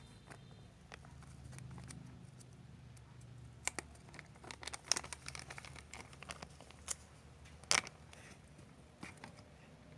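A small plastic packet of gold glitter powder crinkling and being torn open, with a scatter of sharp clicks and crackles, the loudest about eight seconds in.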